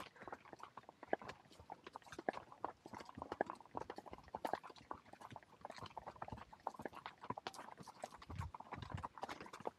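A ridden horse walking on a dirt trail: its hooves make an uneven, continuous clip-clop of footfalls.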